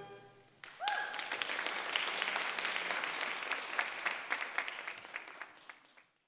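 The audience applauds as the music fades out, with a brief high cheer about a second in. The clapping thins and dies away near the end.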